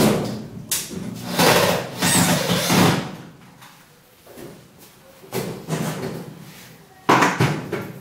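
Irregular bumps, scrapes and rattling knocks from working inside a steel kitchen base cabinet and handling its doors and tools. The loudest clatter comes about a second and a half in, with another sharp knock near the end.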